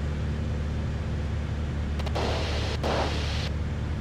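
Single-engine light aircraft's piston engine and propeller droning steadily, heard inside the cabin. About two seconds in, a burst of hiss rises over the drone for just over a second, dipping briefly in the middle.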